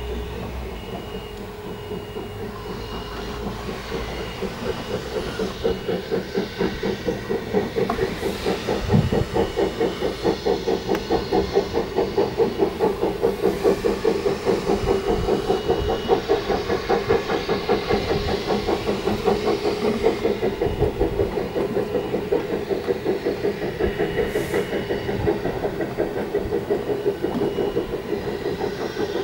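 Narrow-gauge steam locomotive hauling a train away, its exhaust beating at a steady rhythm of about three chuffs a second along with the rumble of the carriages. The sound grows louder over the first several seconds.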